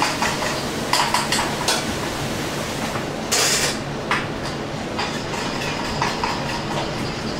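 Metal spoon clinking and scraping against small stainless steel saucepans on a commercial range, over a steady kitchen roar, with a brief hiss about three seconds in.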